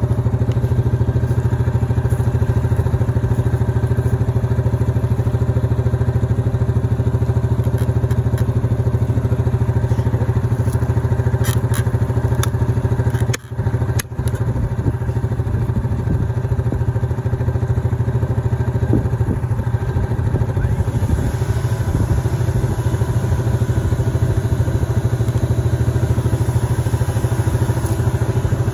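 Yamaha Grizzly 700 ATV's single-cylinder engine idling steadily, with a brief drop-out about halfway through.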